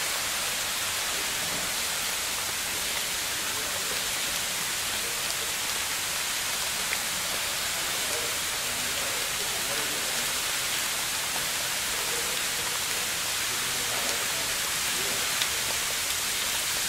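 Steady, even hiss of outdoor background noise, with faint distant voices now and then and two small clicks, one about halfway through and one near the end.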